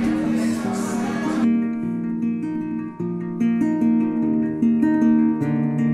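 Background music of plucked acoustic guitar. A noisy wash sits under it for the first second and a half, then cuts off, leaving the guitar alone.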